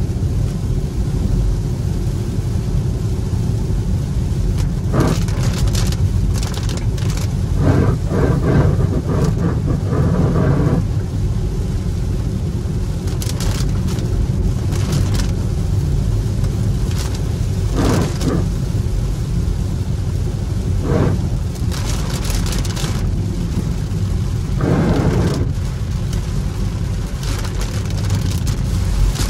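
Cabin noise of a Hyundai Ioniq 5 battery-electric car driving on a rain-soaked road, with no engine note. It is a steady low tyre and road rumble under a hiss of rain and water spray, with brief swishes coming irregularly every few seconds.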